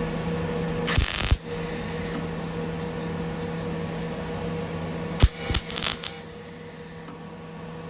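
MIG welder laying two short tack welds on the old tailgate steel: a brief crackling burst about a second in, and a cluster of sharp crackles and pops about five seconds in, over a steady electrical hum that stops near the end.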